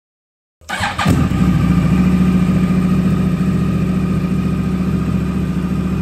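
Yamaha R1's inline-four engine briefly cranking on the starter and catching about a second in, then idling steadily. The bike now starts because its faulty starter solenoid has been replaced.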